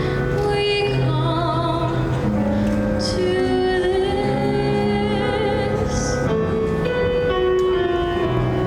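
A solo voice singing a show tune with vibrato, over a sustained accompaniment of held low notes.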